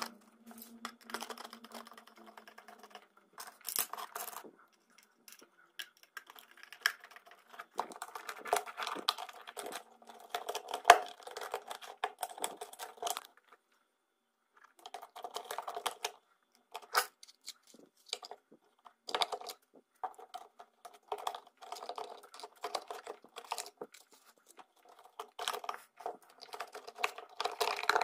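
Green plastic housing and base parts of a Miyako blender being handled and fitted back together around the motor: scattered clicks, knocks and scraping rustles of plastic, with short pauses, and one sharper knock about eleven seconds in.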